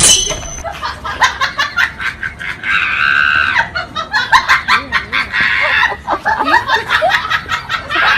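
People laughing in short bursts, with a long high-pitched cry about three seconds in and another in the second half.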